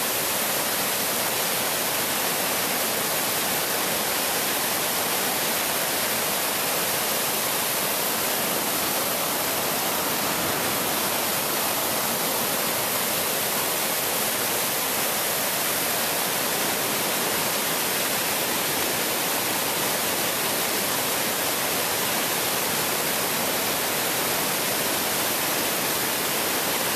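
The River Braan in spate after two days of heavy rain, its swollen brown water rushing over rapids in a loud, steady wash of white-water noise.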